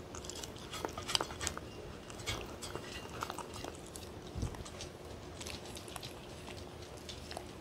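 A dog licking and chewing food from a stainless steel tray: faint, scattered wet clicks and smacks.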